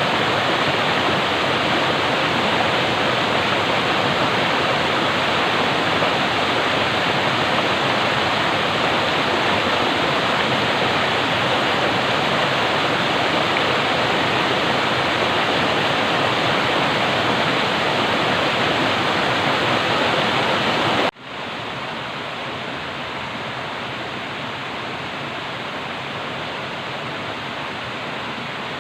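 Flowing water rushing steadily with an even hiss. After about 21 seconds it cuts off abruptly, then carries on noticeably quieter.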